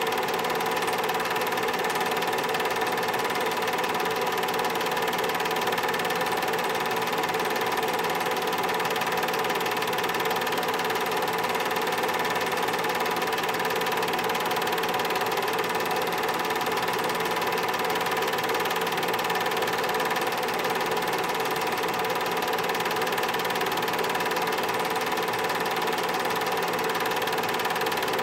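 Home-movie film projector running: a steady, unchanging mechanical whir and chatter from its motor and film transport, with several constant hums.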